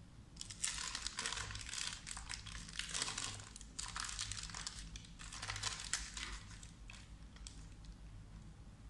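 Butter paper crinkling and rustling in irregular bursts as it is lifted and folded over to roll up a thin sponge cake, dying away near the end.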